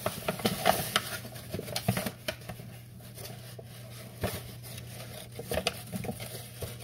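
Hands working in a paper bag of bread flour: the bag rustling and crinkling while a measuring cup scoops and scrapes through the flour, heard as a string of small, irregular ticks and scrapes.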